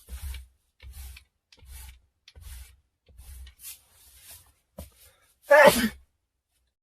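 A run of short, breathy sneezes, about one every three-quarters of a second with dead silence between them, then one loud voiced sneeze about five and a half seconds in.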